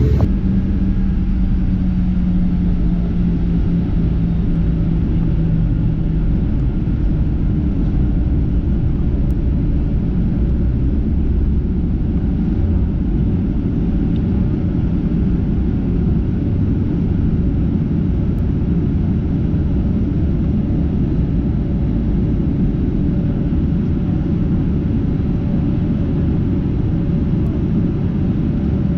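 Steady low rumble inside the cabin of a Boeing 737-800 taxiing, its CFM56-7B engines at low power. A low hum fades away in the first several seconds.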